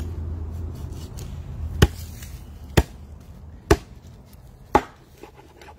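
Four sharp chops of a large knife cutting through mutton snapper pieces and into a wooden cutting board, about one a second.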